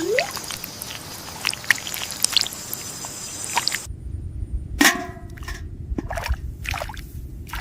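Cartoon sound effects: a busy patter of small drip-like clicks over a hiss for about four seconds. It cuts off abruptly to a low rumble, with a few separate knocks and thuds.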